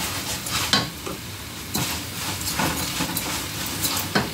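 Diced carrot, chayote, garlic and tomato sizzling in hot oil in a skillet, a steady frying hiss with about five short clicks and knocks scattered through it.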